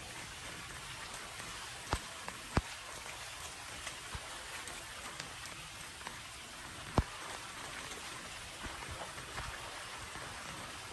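Steady rain falling on wet pavement and a metal street drain grate, with a few sharp ticks now and then.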